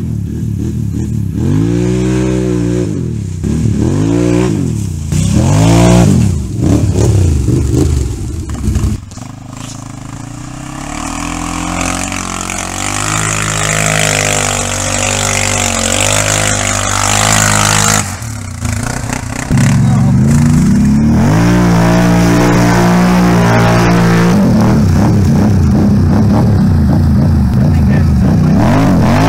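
ATV engines revving hard in a run of rising and falling throttle blips. Then they labour at lower revs through deep mud, and near the end one engine is held at steady high revs.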